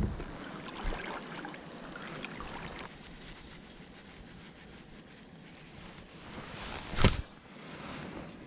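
Water noise around a fishing kayak, with knocks against the hull; one loud, sharp knock about seven seconds in.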